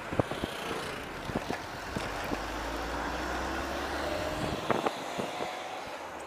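Steady wind and road noise of a moving bicycle, with motor traffic running close by: a low engine hum in the middle and several sharp knocks scattered through.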